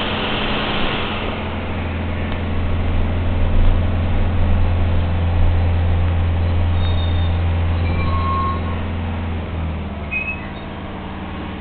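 Articulated trolleybus running, heard from inside: road hiss at first, then a steady low hum through most of the ride that cuts off near the end as the overall level drops. A few short high squeaks come near the end.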